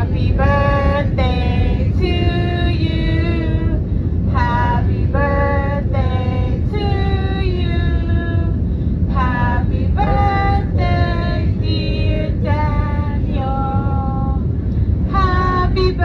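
A high voice singing a melody in held notes over the steady low rumble of an airliner cabin.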